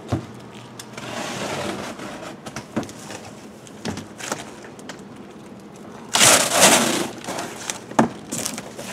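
A box cutter slicing corrugated cardboard, and the cut side panel of the box being torn free and folded down, with a loud ripping scrape of cardboard lasting about a second near six seconds in and a few sharp knocks.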